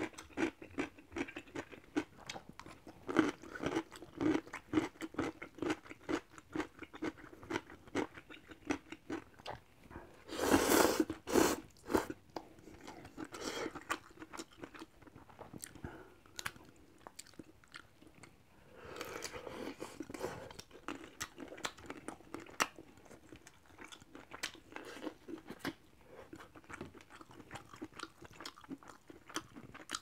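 Close-up eating sounds of shrimp ramen: wet chewing with many small mouth clicks and crunches as noodles and a whole shrimp are bitten and chewed. Two louder noodle slurps come about ten seconds in and again a little before twenty seconds.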